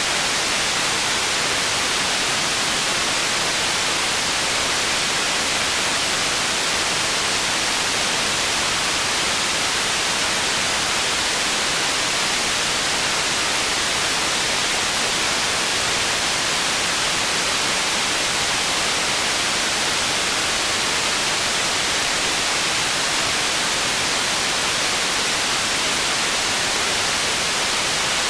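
Processed white noise for tinnitus masking: a steady, unchanging hiss, heaviest in the treble and thin in the bass.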